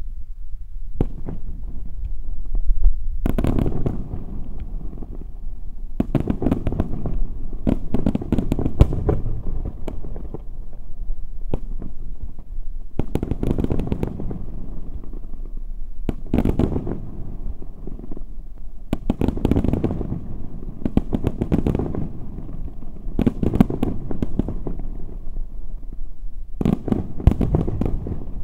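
Daytime fireworks salute: aerial shells bursting overhead in rapid volleys of sharp bangs and crackle, a new cluster every two to three seconds, with a low rumble between the volleys.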